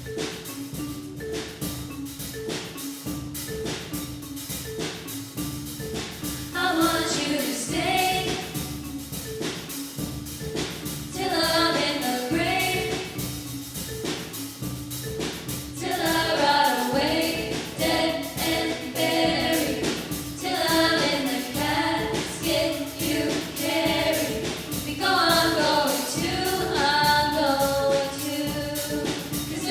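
A choir singing a song over a repeating instrumental accompaniment. The accompaniment plays alone at first, and the voices come in about six seconds in, singing in phrases.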